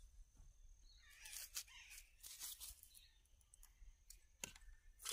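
Near silence with a few faint hissing swishes as a cow's teats are stripped by hand, milk squirting out in short streams.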